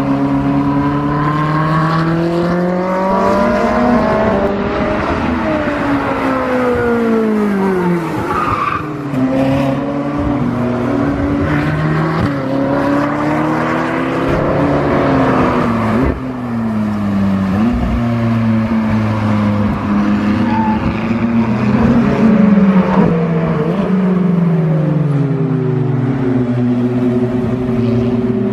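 Sports car engines on a race circuit, a Ferrari 458's V8 among them. The cars rev hard and pass by, engine pitch climbing through the revs, stepping with gear changes and falling away as they go past.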